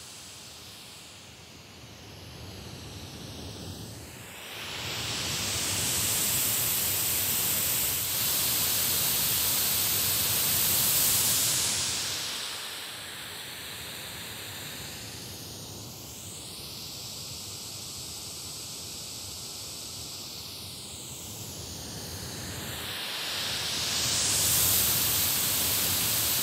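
White noise from a small Bluetooth speaker being moved around a short shotgun microphone. The hiss swells loud for several seconds when the speaker is in front of the mic, drops quieter for about ten seconds when it is off to the side or behind, and rises again near the end. Its tone colour shifts as the speaker moves.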